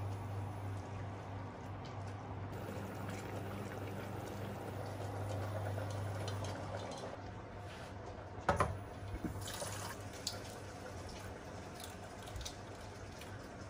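Water sloshing and dripping as boiled eggs in a small pot of cooling water are handled at the sink. A sharp knock comes a little past halfway, then light clicks of eggshell being cracked and peeled. A low steady hum runs under the first half.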